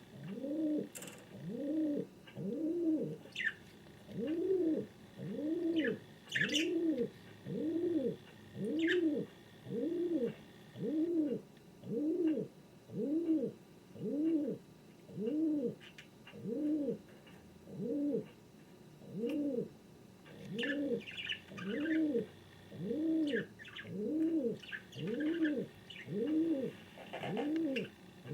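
King pigeon cooing over and over in a steady rhythm, about one coo a second, each coo rising and then falling in pitch. Faint higher chirps sound now and then between the coos.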